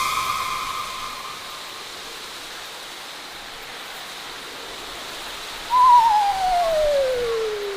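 Spooky sound-effect track: a ringing tone fades out in the first second or so, leaving a steady wind-like hiss. About six seconds in comes a single long eerie cry, the loudest sound here, which wavers briefly and then glides smoothly down in pitch.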